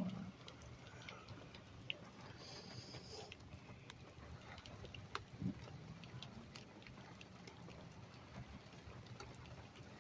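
Rain falling: scattered drops ticking and pattering over a soft steady hiss, with a couple of soft low thumps, one at the start and one about five and a half seconds in.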